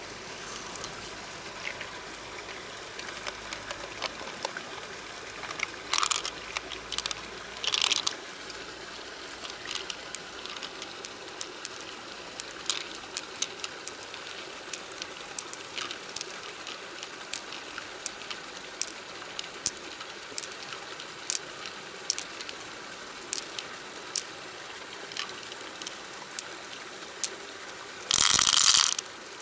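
Running river water, a steady trickling hiss, with many small sharp clicks scattered through it and a few brief louder hissy bursts, the longest near the end.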